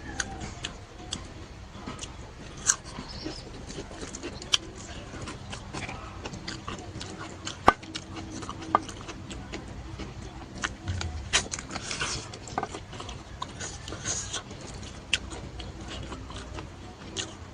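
A person eating smoked beef on camera: chewing with scattered wet mouth smacks and sharp clicks, several a second at times, a few of them louder.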